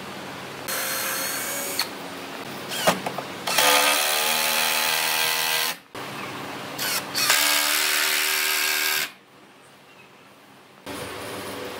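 Power drill running in two bursts of about two seconds each, a short pause between them.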